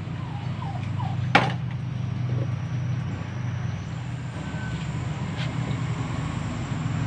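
Steady low droning hum, with a single sharp knock of a kitchen utensil about a second and a half in, and a few faint short chirps.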